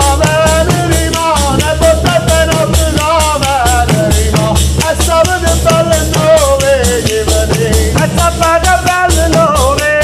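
Tammorre, large frame drums with metal jingles, beaten in a steady fast rhythm while a man sings a long, wavering, ornamented melody over them: Campanian tammurriata music.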